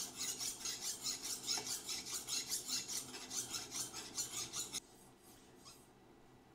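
Flat hand file stroked rapidly back and forth across the steel edge of an antique hatchet head, about three rasping strokes a second. The filing stops abruptly about five seconds in.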